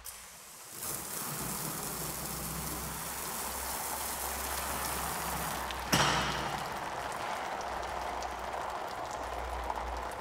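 Water spraying from a hose in a steady hiss with fine pattering, with one sharp knock about six seconds in.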